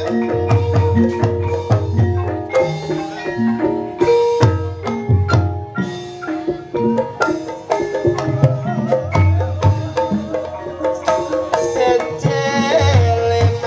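Gamelan music accompanying an ebeg horse dance: interlocking struck, ringing metallophone notes over kendang hand-drum strokes, in a steady, driving rhythm.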